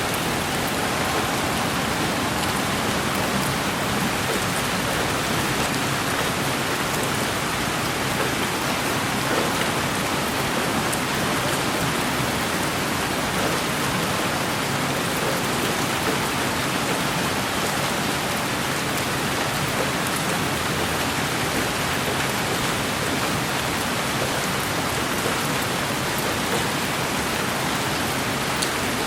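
Steady rain falling, an even hiss that does not change, with a few faint drop ticks here and there.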